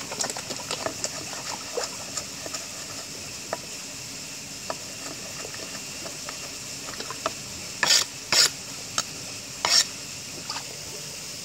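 A kitchen knife chopping leafy greens on a board with quick light taps, thinning out after a few seconds. Near the end come three short, louder scrapes as the blade sweeps the chopped greens across the board.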